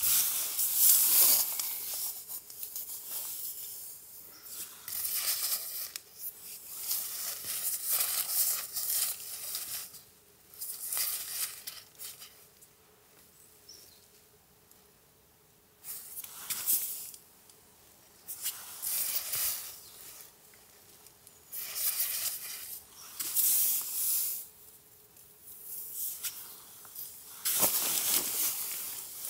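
Irregular bursts of rustling and crinkling, each a second or two long with quieter gaps between, and a few seconds of near quiet in the middle.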